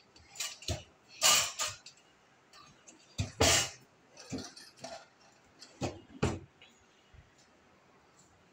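Kitchen cabinet drawers being pulled open and pushed shut, about ten sharp knocks and clinks, the loudest about a second in and again about three and a half seconds in.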